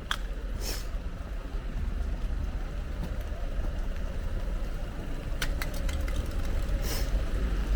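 A vehicle engine running with a steady low rumble, with a few short clicks and two brief hisses, one near the start and one near the end.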